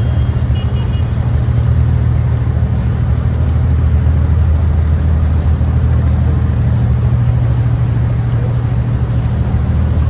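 Abra water taxi's diesel engine running with a steady, low drone.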